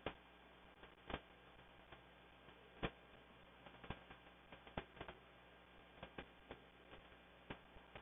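Irregular sharp clicks of a finch's bill picking at and cracking sunflower seeds in a clear plastic window feeder, about a dozen over several seconds, the loudest about a second in and near three seconds in, over a faint steady hiss.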